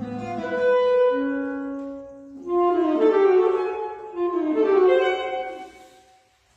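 Saxophone playing a melody in two phrases, the second with a wavering tone, fading out near the end.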